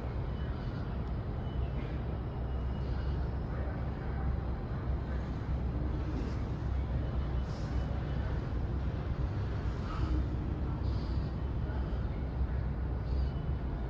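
Steady low rumble of city traffic, with a few faint short hisses over it.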